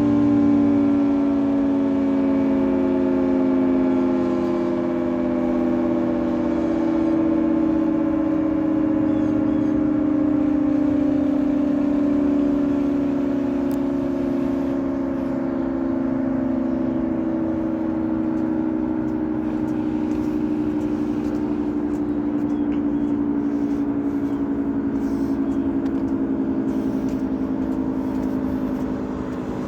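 Federal Signal 3T22 three-tone electromechanical outdoor warning siren sounding a chord on the full-alert signal, its pitch falling slowly as it winds down.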